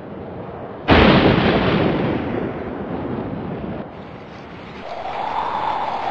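A sudden loud thunderclap about a second in that rumbles away over the next two or three seconds, over a steady wash of wind-like noise. Near the end a faint tone rises and falls.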